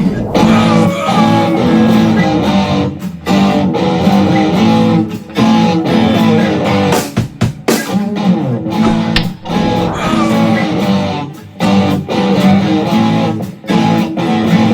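Guitar strumming chords in a steady rhythm, with short breaks between phrases.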